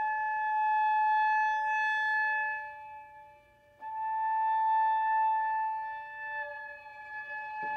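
Clarinet, viola and piano trio playing a slow contemporary chamber piece: long held notes that swell and fade, a new held note entering about four seconds in, and a piano note struck near the end.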